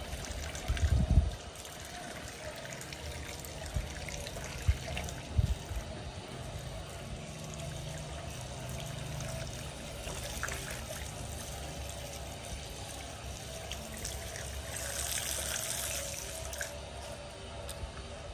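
Water running from an outdoor tap, trickling and splashing onto concrete and hands as they are washed under it. A few low thumps about a second in and again around four to five seconds, and the water is briefly louder and hissier near the end.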